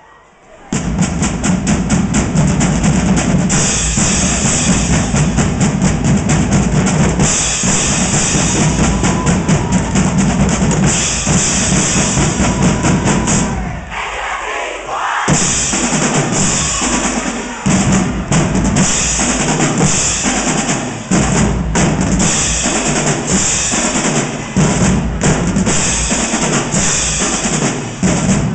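Drumline playing a cadence on marching bass drums and snare and tenor drums, with crash cymbals ringing over the beat. It starts about a second in, thins out briefly around the middle, then goes on in short accented hits with cymbal crashes.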